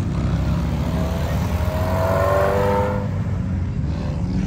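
Subaru WRX's turbocharged flat-four engine accelerating away down the road, a steady low rumble with a tone that rises in pitch a little past the middle.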